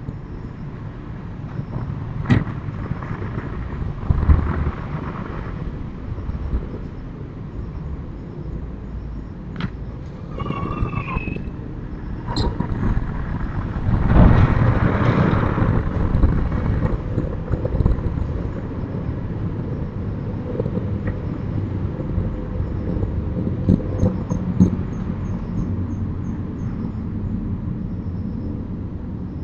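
Outdoor ambience: a steady low rumble of road traffic, swelling for a couple of seconds about fourteen seconds in as a vehicle passes, with a few scattered sharp knocks.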